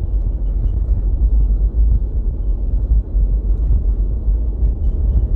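Cabin noise inside a Toyota Avanza: a steady low rumble of road and engine noise in a cabin not yet fitted with sound deadening.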